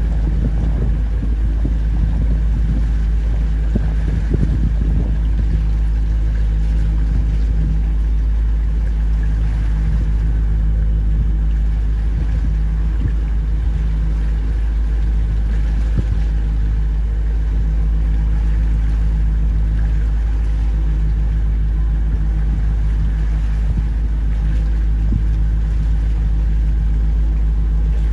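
A small boat's engine running steadily, heard as a loud, even low hum with a constant pitch.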